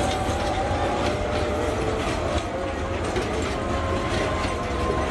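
Container freight train's flat wagons rolling past on the rails: a steady rumble with a rhythmic clickety-clack of wheels over the rail joints and thin, steady metallic squealing tones above it.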